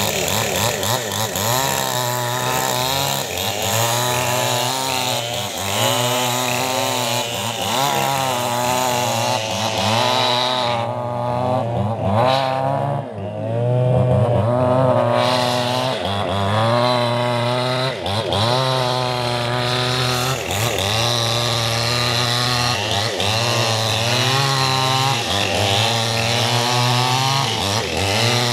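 Petrol chainsaw running under load, ripping lengthwise along a squared log. The engine speed wavers up and down as the chain cuts, with a brief easing about twelve seconds in.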